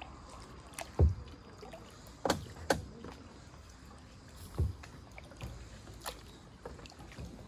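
Kayak paddling in calm water: the paddle blade dipping and splashing in irregular strokes about every one to two seconds, the loudest a dull thump about a second in.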